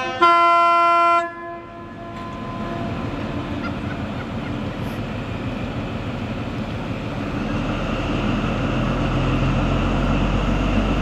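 An HST Class 43 diesel power car sounds a short horn blast that cuts off about a second in. The train's diesel engine noise then builds steadily as it pulls out of the platform.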